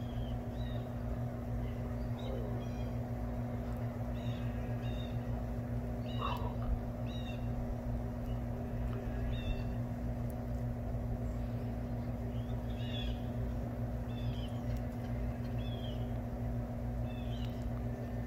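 Small birds chirping, short high calls roughly once a second, one a little stronger about six seconds in, over a steady low hum.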